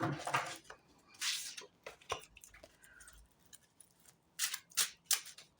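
Tarot cards being handled: about five short papery swishes, three of them close together near the end.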